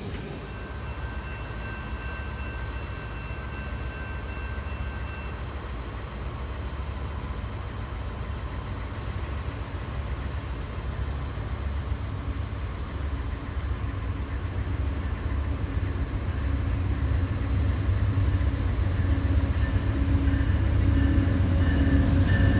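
Train approaching, its low rumble growing steadily louder.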